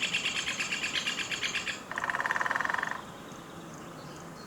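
Birds singing in a field recording: a fast, high trill, then about two seconds in a lower, faster trill lasting about a second. Underneath, faint regular ticks that sound like water dripping run through the recording.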